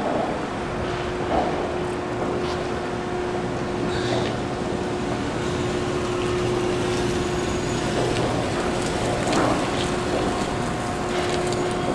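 Steady machine hum with a constant mid-pitched tone over a rumbling background, from the motorized Alley Cat compactor-container delivery system moving the wheeled container. The tone drops out for a few seconds about two-thirds of the way through.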